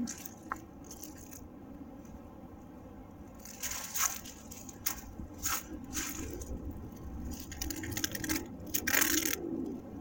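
Dry, papery peeling tree bark crackling and scraping as it is handled, in short irregular bursts that grow busier in the second half.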